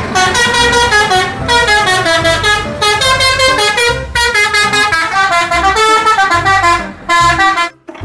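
A bus's multi-tone musical horn, an Indonesian 'telolet' horn, plays rapid runs of notes that step up and down like a tune. It pauses briefly a few times and stops near the end.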